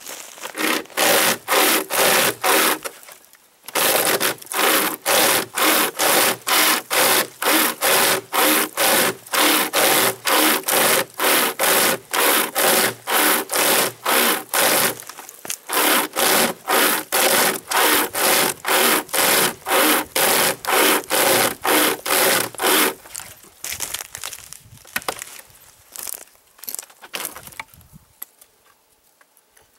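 Homemade pocket survival chainsaw, a length of chainsaw chain with webbing handles at each end, pulled back and forth by hand through a dead log: a rasping cut at about two strokes a second. The sawing pauses briefly twice and stops about three-quarters of the way through, followed by a few scattered knocks and rustles.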